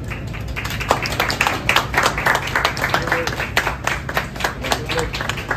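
A small group of people clapping their hands: many quick, overlapping claps.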